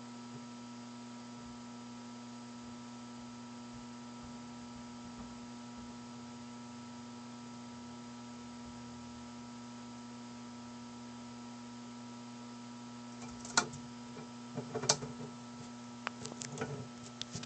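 Steady electrical hum made of several faint even tones. Near the end come a handful of sharp clicks and knocks, the two loudest about a second apart.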